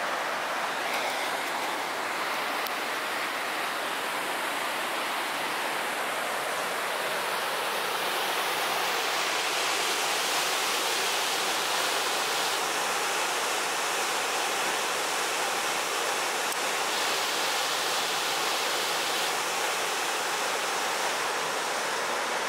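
Steady rushing of river rapids and a waterfall pouring through a narrow rock gorge, turning brighter about nine seconds in.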